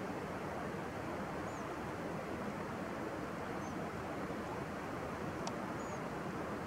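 Steady rushing outdoor noise with no break or change, and a few faint, short high chirps over it. A single faint click comes about five and a half seconds in.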